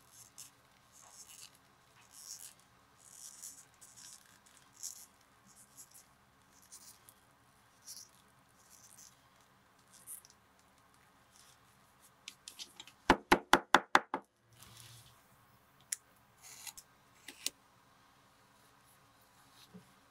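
Leather strap being folded and smoothed by hand on a cutting mat, with soft scraping and rustling. About two-thirds of the way through comes a quick run of about six sharp taps, a hammer flattening the fold, followed by a few single clicks.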